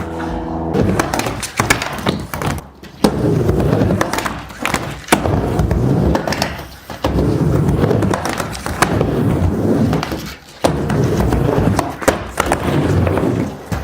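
Skateboard riding a mini ramp: the wheels rumble, swelling and fading with each pass every two to three seconds, broken by sharp clacks of the board and trucks.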